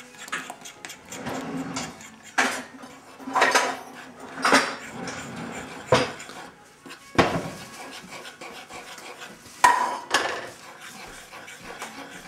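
Kitchen clatter: a string of sharp, irregular clinks and knocks, like dishes or utensils being handled, with the loudest pair near the end.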